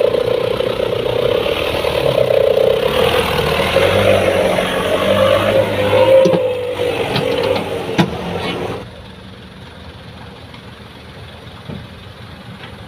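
Heavy diesel machinery engine running hard with a wavering whine, then, about nine seconds in, an abrupt drop to a much quieter steady engine running.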